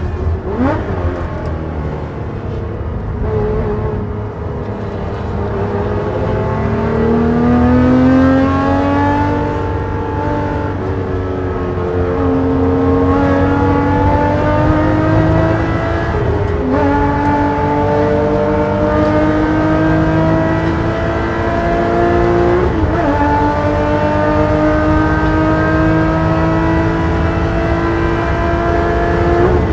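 Porsche race car engine, easing off at low revs through a slow corner with a quick rev blip near the start. It then pulls hard through the gears, the pitch climbing in long sweeps and dropping at each of four upshifts as the car accelerates to top speed.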